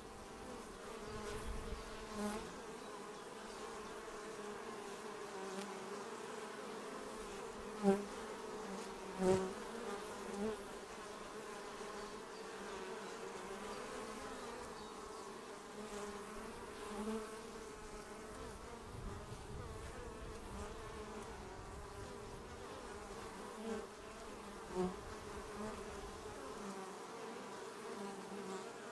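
Western honey bees buzzing around the hive: a steady, many-winged hum, with short louder buzzes now and then.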